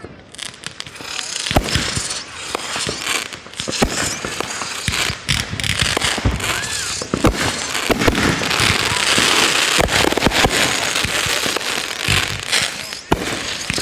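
Fireworks going off in quick succession: sharp bangs and pops over dense crackling, which swells to a thick, continuous crackle about two-thirds of the way through.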